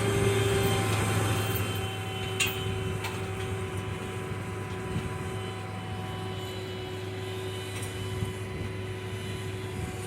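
Tow truck running steadily: a low engine hum with a steady whine over it. There is a brief click about two and a half seconds in.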